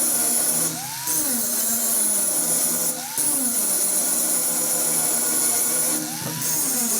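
Angle grinder grinding steel, a steady high whine that drops out briefly a few times, under background music.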